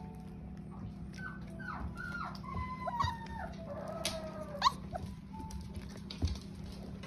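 Shepsky (German shepherd × husky) puppies, four weeks old, whining: a run of short, falling whimpers over a few seconds, with a few sharp taps among them.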